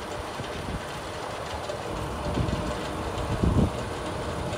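Wind buffeting the microphone: a low, gusty rumble over a steady outdoor hiss, swelling about halfway through.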